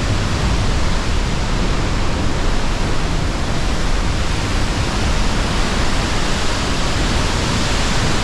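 Pailón del Diablo waterfall roaring at close range: a loud, steady rush of falling water and spray.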